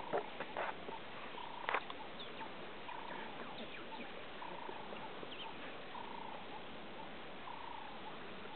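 A small animal's short call, repeated at the same pitch about once a second against a steady background hiss, with a few sharp cracks in the first two seconds.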